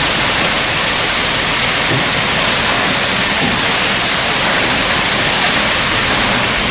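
Concrete batch plant equipment making a steady, loud, even rushing noise, with no distinct knocks or tones.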